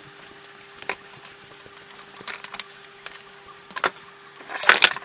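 Scattered metal knocks and clinks as a motorcycle rear wheel is worked free of the swingarm, with the loudest clattering scrape near the end. A steady faint hum runs underneath.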